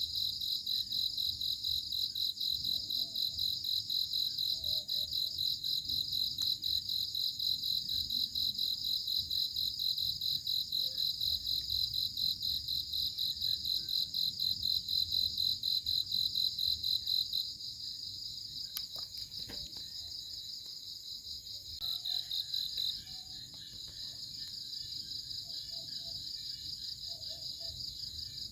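Crickets chirping in a high, rapidly pulsing song. The loudest cricket stops about two-thirds of the way through, returns briefly, and quieter crickets keep going.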